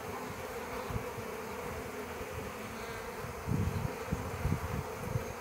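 Honeybees and wasps buzzing in flight close by, a steady drone, with a brief low rumble about three and a half seconds in.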